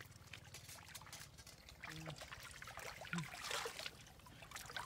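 Water trickling and splashing, with a louder splash about three and a half seconds in and scattered small clicks.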